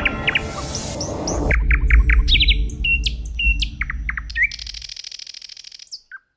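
Quick bird-like chirping and whistling, many short notes sweeping up and down, over a low steady rumble. The rumble stops about five seconds in, and after a last chirp or two the sound cuts off to silence.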